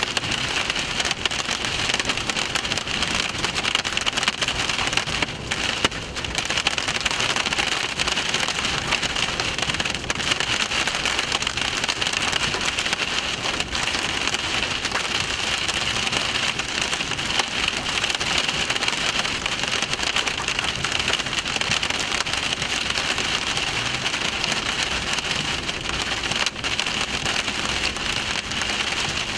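Heavy rain beating steadily on a vehicle: a loud, unbroken hiss of countless drops.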